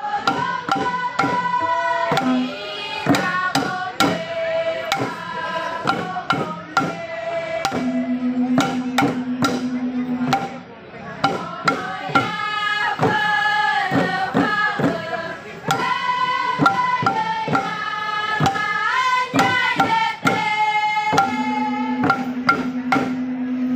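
Voices singing a Papuan welcome song together over a steady beat of hand-struck tifa drums.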